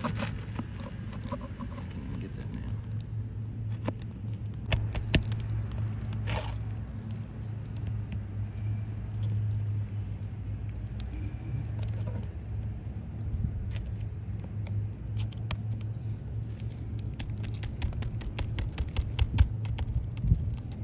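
Flat pry bar scraping and clicking against gritty asphalt shingles as it is worked under a lifted three-tab shingle, with a quick run of clicks near the end. A steady low hum continues underneath.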